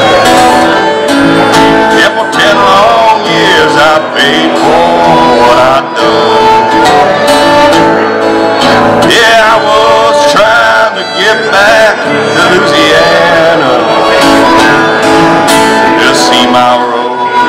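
Fiddle and acoustic guitar playing a tune together live: the fiddle carries the sliding melody over the guitar's strummed chords, amplified through PA speakers.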